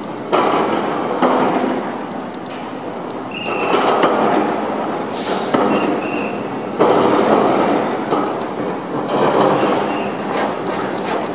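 Metal clanking and scraping in rough bursts: a crane's steel hook and chain sling being worked against steel road plates as they are freed, with a few brief metallic squeaks.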